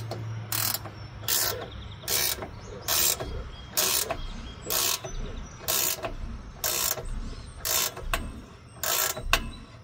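Hand ratchet wrench being worked on an exhaust clamp nut under a truck: short rattling click runs on each back-stroke, about once a second.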